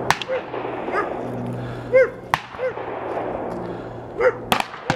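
Several sharp gunshots from a shooting range, with a dog answering in four short barks between them.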